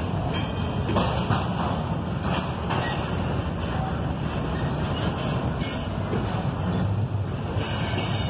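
Double-stack intermodal well cars with containers rolling past: a steady, heavy rumble of steel wheels on rail, with a few sharp clacks in the first three seconds.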